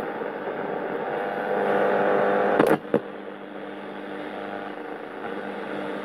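A 1971–72 ITT Schaub-Lorenz Clock Radio 101 hissing with static and a faint hum through its speaker while it is tuned across an AM band, picking up no station. About three seconds in come two sharp clicks close together, after which the static is quieter.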